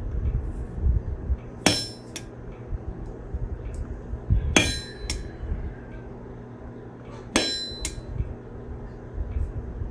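Hammer blows on hot steel at the anvil: three ringing strikes about three seconds apart, each followed by a lighter tap, over a low steady hum.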